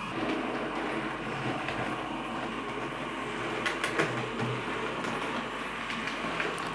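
00 gauge model train running past on the track, a steady whirr and rattle of its motor and wheels, with a few sharp clicks about four seconds in.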